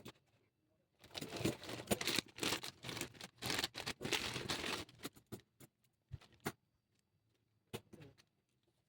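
Hands handling packaging and a toy figure: dense rustling and crinkling for about four seconds, then a few scattered clicks and taps.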